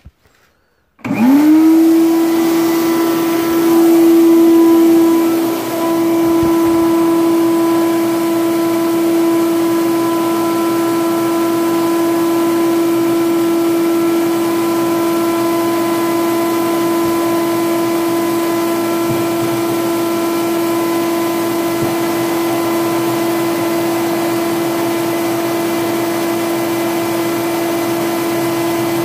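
Electric air blower for a ribbon forge burner switching on about a second in, spinning up within half a second to a steady loud hum of constant pitch over a wash of rushing air.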